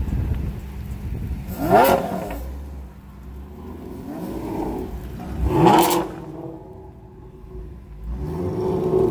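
Ford Mustang's engine revving hard twice as the car pulls away. Each time the pitch climbs quickly to a loud peak and falls back, and a third rise begins near the end.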